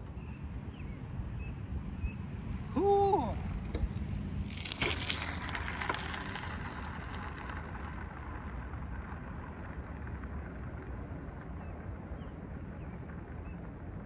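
Folding bike's tyres rolling over a gravel path, a rushing crunch that swells as the bike passes close about five seconds in and then fades as it rides off, over a steady low rumble. A short pitched tone sounds briefly about three seconds in.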